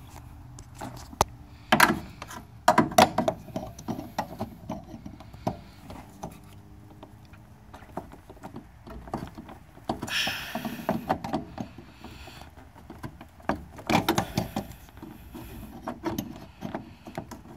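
Scattered plastic clicks, knocks and rubbing as hands work behind a car's headlight housing, trying to twist out a stuck headlight bulb, with a longer rustle about ten seconds in.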